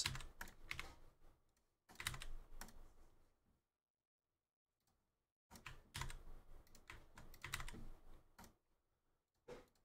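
Computer keyboard being typed on, faintly, in three short spells of keystrokes with a silent gap of about two seconds in the middle, and a single last key tap near the end.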